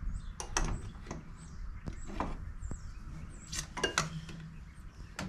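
Scattered light knocks and clinks of small parts being handled, one with a brief metallic ring about four seconds in.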